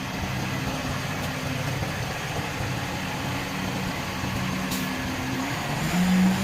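Garbage truck's diesel engine idling with a steady low drone, then revving up and getting louder near the end.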